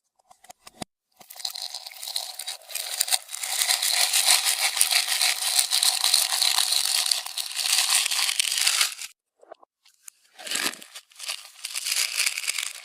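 Clear slime being squished and stretched by hand, a dense crackly, crunchy noise. It goes on in one long stretch, stops briefly, then starts again near the end.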